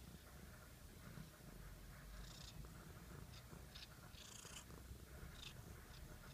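Domestic cat purring faintly and steadily, with a few short breathy or snuffly sounds over the purr in the second half.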